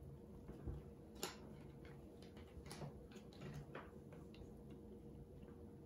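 Faint, irregular light clicks and taps of baseball cards being handled, shuffled through and set down on a wooden table, over quiet room tone; the sharpest tick comes about a second in.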